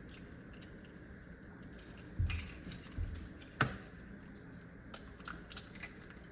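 Scattered light clicks and taps of kitchenware being handled, with three sharper knocks about two, three and three and a half seconds in.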